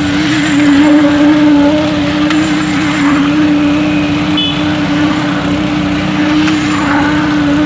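Engine-driven construction machinery running steadily at a constant pitch during a concrete pour, with a strong steady hum.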